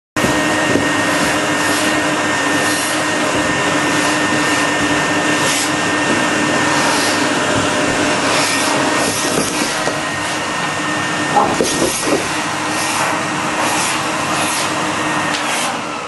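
Vacuum cleaner running steadily: an even rushing noise with a constant hum. A few short louder sounds come about two-thirds of the way through, and the level starts to drop just before the end.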